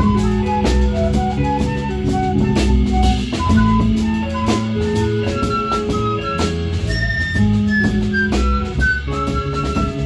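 A live band playing an instrumental passage. A melody of held notes moves up and down over sustained bass notes, with a drum kit keeping a steady beat.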